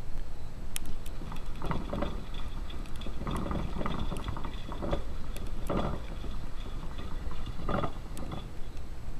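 Irregular bursts of scratchy rustling and scraping from inside a hamster cage with wood-shaving bedding, over a steady low rumble.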